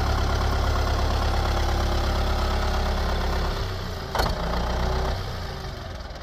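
New Holland loader tractor's diesel engine idling steadily, with a single sharp clunk about four seconds in, then the engine sound runs down and fades near the end.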